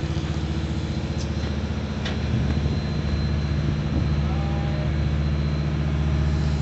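A large engine idling steadily, giving a low, even drone, with a few faint clicks.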